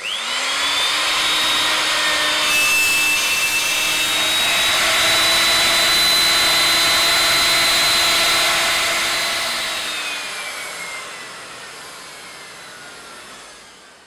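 Electric plunge router switched on, its whine rising quickly to speed, then running steadily as it cuts a 6 mm deep rebate in an 18 mm plywood batten through a jig. About ten seconds in it is switched off, and the whine falls away as the motor winds down.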